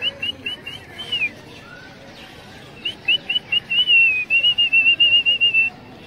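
Clear, loud whistled notes: a quick run of short rising notes ending in one longer falling note, then after a pause a second run that turns into a fast wavering trill and stops near the end.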